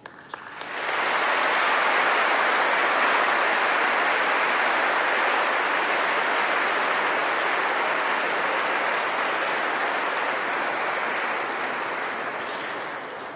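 Applause from a large audience, building up about a second in, holding steady, then fading near the end.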